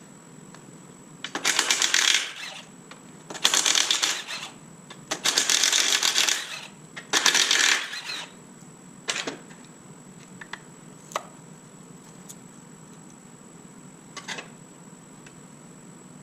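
Ratchet wrench clicking rapidly in four bursts of about a second each, the sound of bolts being run out during a transmission teardown, followed by a few single metallic clicks.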